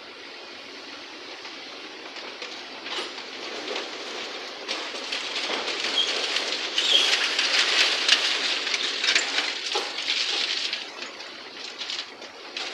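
Demolition rubble clattering and rattling as an excavator's grab loads it into a tipper truck's steel tray, a dense crackle of many small impacts that builds, is loudest in the middle, and fades near the end.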